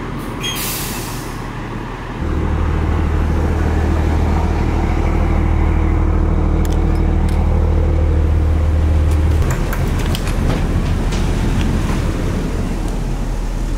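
Diesel engine of a 1989 Eagle coach pulling the fully loaded bus away. A short burst of air hiss comes about half a second in, then the engine note steps up to a strong steady drone at about two seconds and drops back at about nine and a half seconds. Scattered clicks follow near the end.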